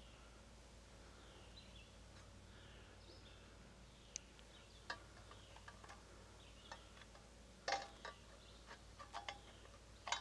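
Faint birdsong, then scattered small clicks and a brief scrape as a starter rope and a screwdriver are worked through the hole in a lawn mower's recoil starter housing.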